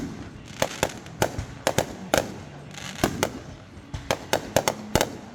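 Fireworks going off in a rapid, irregular barrage: about fifteen sharp bangs and cracks, some in quick clusters.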